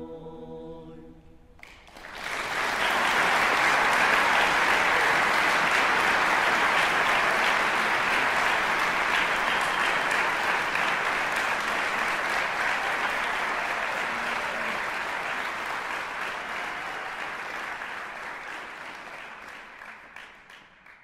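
The last sustained chord of the music dies away, then an audience breaks into applause about two seconds in, clapping steadily and gradually fading out near the end.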